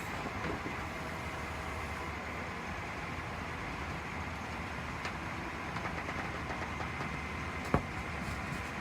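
A large engine running steadily, with a single sharp knock near the end.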